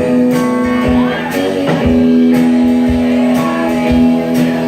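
Instrumental break in a band's song: guitar over a steady beat, with no singing.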